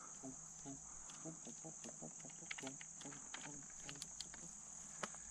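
Steady high-pitched chorus of insects, with a run of light clicks and taps as hands work the plastic case of a trail camera.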